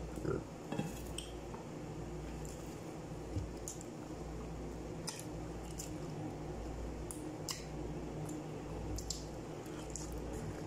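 Wet chewing, sucking and lip-smacking sounds of someone gnawing a spiced goat trotter (paya) by hand, as scattered short wet clicks and squishes. A steady low hum runs underneath.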